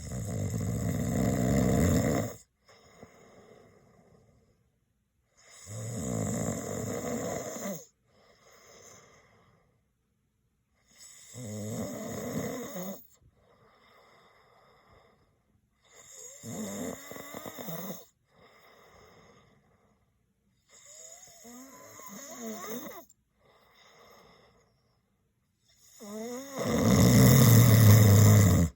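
A man snoring: six loud snores about every five seconds, each followed by a much softer breath. The first and last snores are the loudest.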